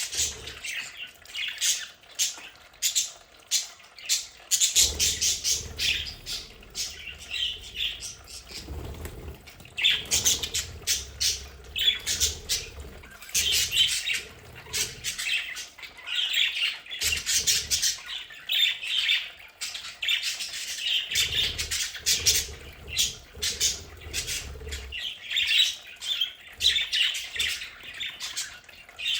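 Several budgerigars chattering, chirping and squawking in rapid, continuous bursts. A low hum comes in twice for a few seconds underneath.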